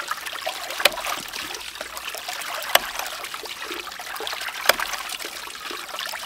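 Hydraulic ram pump's waste valve cycling under water in a half bucket with a cup fitting on top. It gives a sharp clack three times, about every two seconds, as the valve slams shut, over steady trickling and splashing of water.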